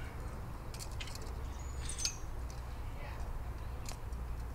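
Handcuff chain and cuffs clinking in scattered sharp clicks as a bound person works at escaping, over a steady low hum.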